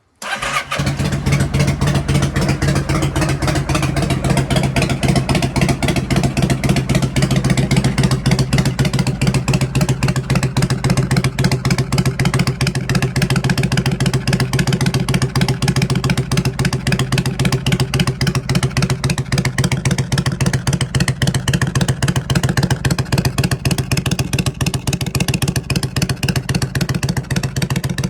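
Kawasaki Vulcan 400 Drifter's V-twin engine idling steadily through its exhaust, loud and unchanging, without revving.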